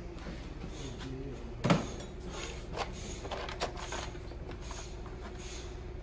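Knocks and light clatter of an engine rocker cover being worked loose and lifted off a diesel engine, with one sharp knock about two seconds in. A faint steady hum runs underneath.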